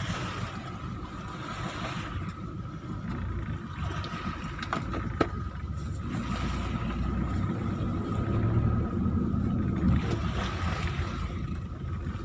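Vehicle engine and tyres rumbling steadily while driving slowly over soft beach sand, heard from inside the cabin. A couple of sharp clicks come a little before the middle.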